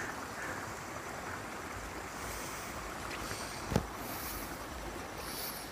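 Steady rushing outdoor noise, such as wind and running water make, with one short sharp knock about three and a half seconds in.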